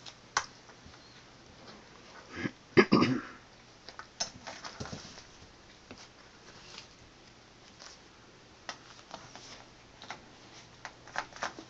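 Scattered scratching, rustling and light taps from cats rolling and pawing on a small mat and a tiled floor. About three seconds in there is a louder, longer burst of noise, and a cluster of sharp clicks comes near the end.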